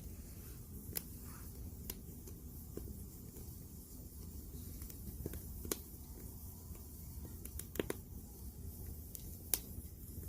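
Firewood burning in a campfire: sharp crackling pops every second or so, at uneven intervals, over a steady low rumble from the fire.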